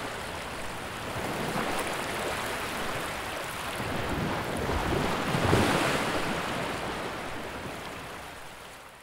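Surf washing onto a shore as a steady rushing hiss. It swells a little past the middle, then fades out near the end.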